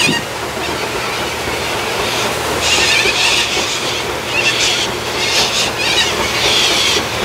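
A flock of white cockatoos screeching in harsh bursts, several times from about two and a half seconds in. Beneath them runs the paddle boat's steady low engine hum.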